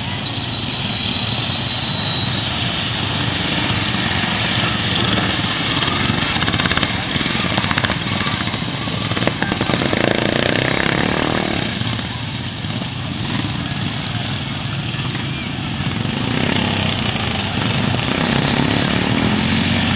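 Racing lawn mower engines running hard, a dense steady drone that swells and eases several times.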